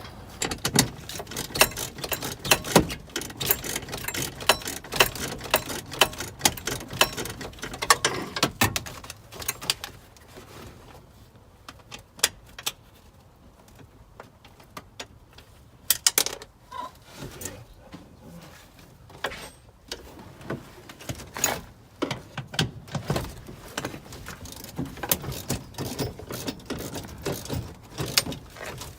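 Hand tools and loose metal parts clinking, rattling and knocking in short irregular bursts as parts are unbolted from a car, with a quieter spell about a third of the way in.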